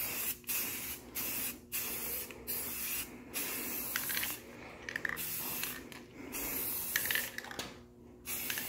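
Aerosol spray can of primer hissing as primer is sprayed onto a mini bike wheel rim, in a series of short passes about a second long with brief breaks between them.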